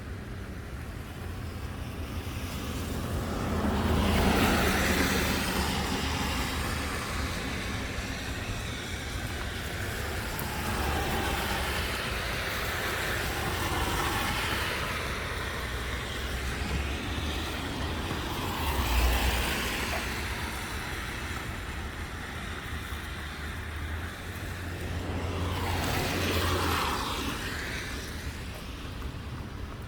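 Road traffic: several vehicles passing one after another, their tyre and engine noise swelling and fading about five times, over a steady low rumble.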